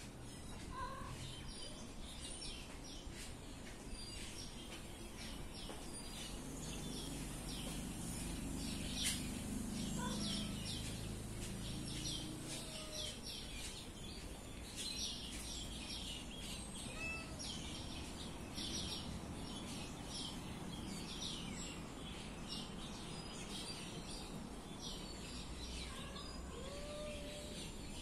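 Small birds chirping in many quick, high calls, thickest through the middle of the stretch, over steady low background noise that swells for a few seconds about a third of the way in.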